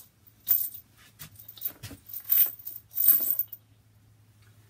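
A small plastic bag of metal hardware (washers, hex nuts, elevator bolts, wing nuts) being handled and opened, with rustling and the light clinking of the loose parts in several short bursts, the loudest past the middle.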